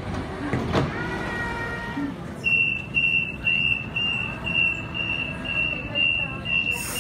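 A stopped Sydney Trains double-deck electric train's door warning beeper, sounding a single high beep about twice a second from a couple of seconds in, over the low running hum of the train. A sharp knock comes about a second in.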